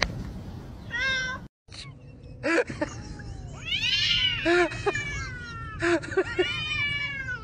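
A cat gives a short meow about a second in; then two domestic cats in a face-off yowl at each other, long wavering wails that rise and fall in pitch, several in a row.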